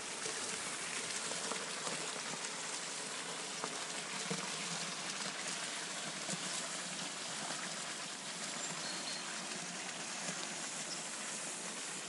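Steady hiss of water splashing into a trout pond, with a few faint small ticks.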